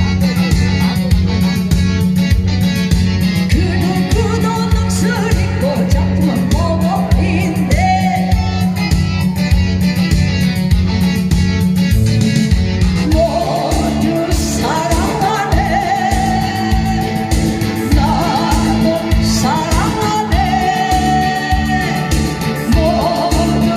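A singer performing live over a backing track with a steady beat; the sung melody slides between notes.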